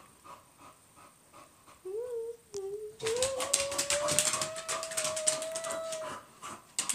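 A bulldog whining while it chases a laser dot, its claws clicking on a hardwood floor. A short wavering whine comes about two seconds in, then a long whine that slowly rises in pitch for about three seconds over fast claw clicks.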